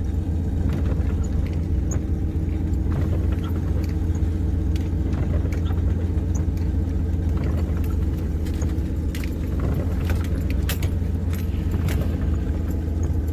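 Car engine and road noise heard from inside the cab while driving, a steady low drone, with scattered light clicks and ticks throughout, thickest near the end.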